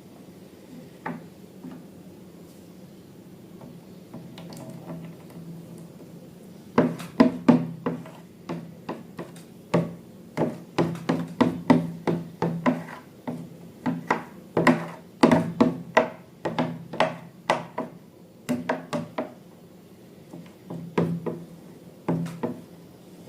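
Quick, irregular sharp clicks and knocks of small objects being handled, several a second, coming in runs, over a low steady hum.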